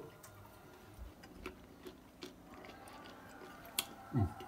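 Faint scattered light clicks and ticks, with a soft bump about four seconds in.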